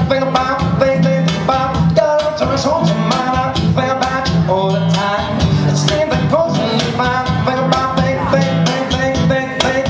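Live guitar music: a rhythmic instrumental passage of quick, sharp, percussive strokes under a shifting melody.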